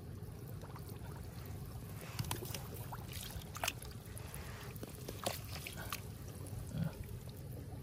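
A hand groping through shallow muddy water in a grassy ditch, feeling for fish: water sloshing and trickling, with scattered small splashes and wet clicks from about two seconds in, over a low steady rumble.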